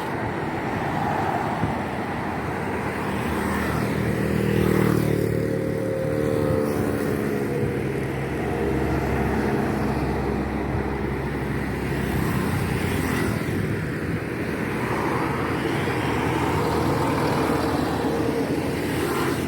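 Road traffic running steadily, with one vehicle engine passing close from about four seconds in, its pitch rising and then falling away.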